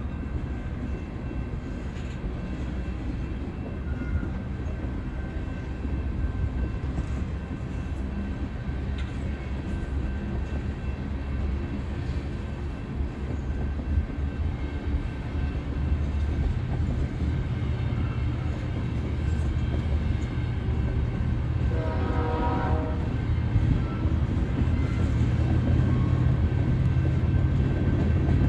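Railroad train passing with a steady low rumble that slowly grows louder, and a short horn blast about three quarters of the way through.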